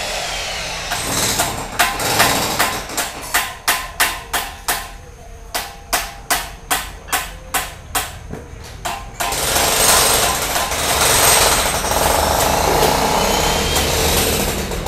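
Construction work: sharp hammer blows at about three a second, in two runs with a short break midway, stopping about nine seconds in, after which a steady machine noise runs on.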